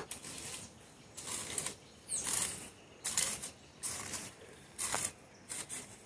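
Long-handled hoe chopping into and scraping through earth in a steady rhythm of about one stroke a second.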